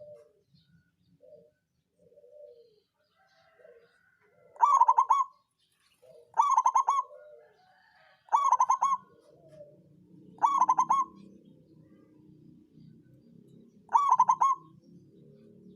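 Zebra dove (perkutut) with a 'songgo ratu' voice cooing: five loud, rapidly pulsed coo phrases, each under a second, the first about four and a half seconds in. Softer, lower coos come before them, and a low murmur runs under the later calls.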